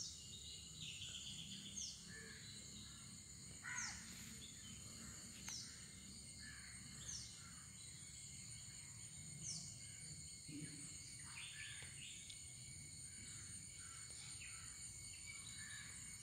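Faint outdoor wildlife background: a steady high insect drone, with a bird repeating a short falling call about every two seconds and other scattered bird chirps. The loudest call comes about four seconds in.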